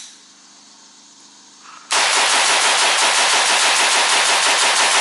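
Rapid automatic gunfire: a continuous stream of evenly spaced shots that starts suddenly about two seconds in, lasts about three seconds and fades away at the end.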